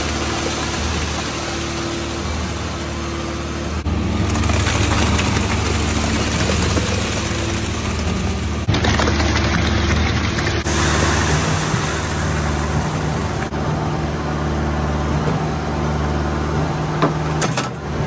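Concrete mixer truck running at the rear with its drum turning: a steady diesel engine rumble under a wide rushing noise. The sound changes abruptly three times, about 4, 9 and 11 seconds in.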